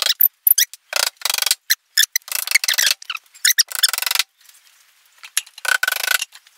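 Hammer driving small nails into a thin 3 mm MDF cabinet back panel, in quick runs of light, high-pitched taps that start and stop, with a short pause a little after the middle.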